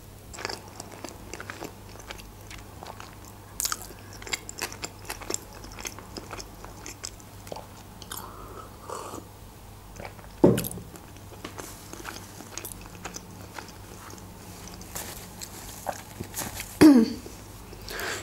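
Close-miked chewing of a mouthful of sushi roll: wet mouth clicks and squelches as the rice and fish are bitten and chewed, with a few louder mouth sounds, the loudest about ten seconds in.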